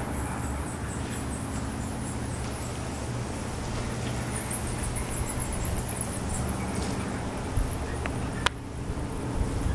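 Roosting bats giving high-pitched squeaking chatter on and off, over a steady low hum. There is a single sharp click about eight and a half seconds in.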